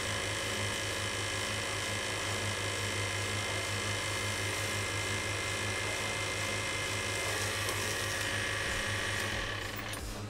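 Small bench lathe cutting a spinning gold bangle: a steady high-pitched cutting whine over the motor's low hum. The whine stops near the end while the motor keeps running.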